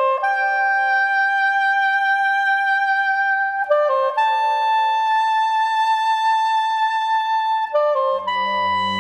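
Slow background music: a single melody line of long held notes, each opening with a quick flourish of short notes. A low sustained accompaniment comes in near the end.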